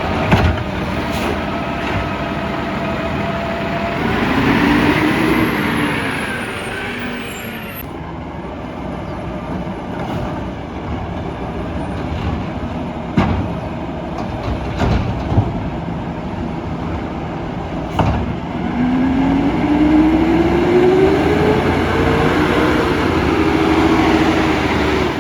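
Peterbilt 320 garbage truck with a McNeilus ZR side-loader body running, its engine speeding up twice with a rising whine. Several sharp knocks come through the engine noise.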